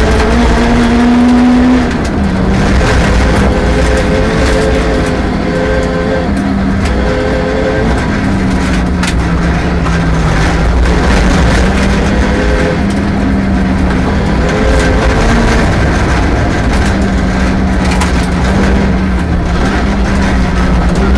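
Rally car engine running hard on a special stage, its note held steady and then dropping and climbing again as the driver lifts and changes gear, over a steady rush of road noise.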